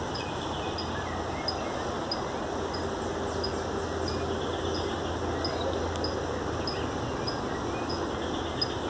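Outdoor ambience: a high insect chirp repeating evenly about every two-thirds of a second, over a low steady hum that fades out near the end.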